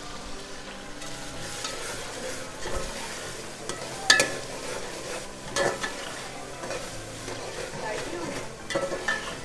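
A metal slotted spoon stirring a tomato-and-onion masala sizzling in a large aluminium pot, the spoon clinking sharply against the pot several times.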